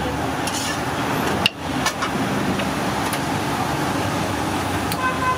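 A knife slicing button mushrooms on a wooden chopping board, giving a few irregular soft knocks, over a steady rushing background noise.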